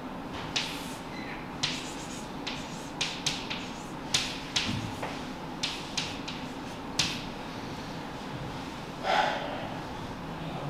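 Chalk on a blackboard while an equation is written: about a dozen short, sharp taps and strokes at irregular intervals. A longer, louder scratchy sound comes about nine seconds in.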